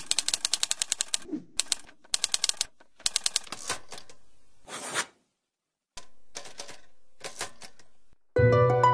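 Typewriter typing: several bursts of rapid key strikes, with a short swish about five seconds in. Plucked-string music comes in just at the end.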